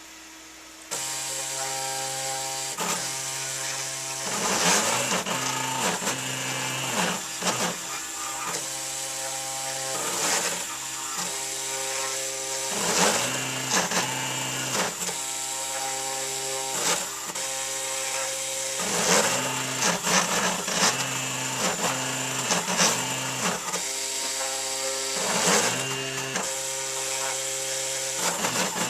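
CNC machine running a test program, starting up about a second in. Its drive motors whine in steady tones that jump between pitches, with rising and falling glides and sharp clicks, in a cycle that repeats every few seconds.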